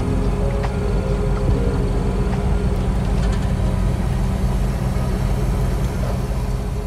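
Mitsubishi Pajero's 2.5-litre turbo-diesel engine running steadily at an even pitch.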